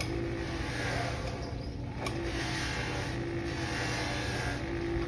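Bench buffing motor running steadily with a buffing wheel as a brass trombone bell is worked against it. A hiss of the wheel on the metal swells and eases about once a second over the constant hum of the motor.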